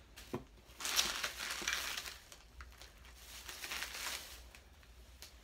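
Plastic shopping bag rustling and crinkling as a hand digs through it, in two bouts: a louder one about a second in and a softer one near four seconds.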